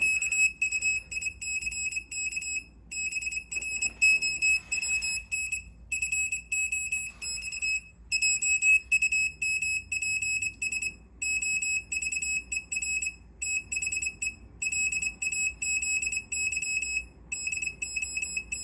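A piezo buzzer on an Arduino-clone board's output pin beeps Morse code as a single high-pitched tone keyed in short and long beeps with gaps between letters and words. It is spelling out "the quick brown fox jumps over the lazy dog".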